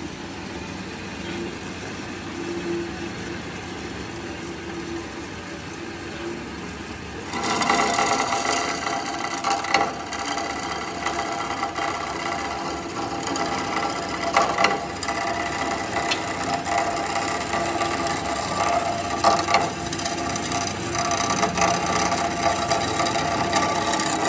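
Kalamazoo H9AD horizontal metal-cutting band saw running with its blade feeding down slowly. About seven seconds in the blade bites into a thick piece of metal and a louder, steady cutting sound with a ringing edge takes over, with occasional sharp ticks.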